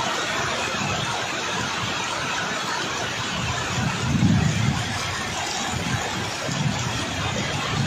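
Heavy storm rain falling steadily, with wind gusting against the microphone in low rumbles about four seconds in and again near the end.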